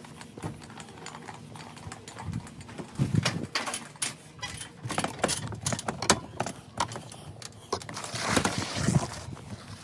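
Irregular knocks, clicks and scuffs of a person climbing up onto a roof, with a louder scraping rustle near the end.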